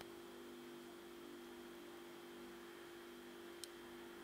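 Near silence with a steady low hum, broken by one faint, sharp click about three and a half seconds in, from the stainless steel crown of a Cartier Roadster automatic watch being worked between the fingers.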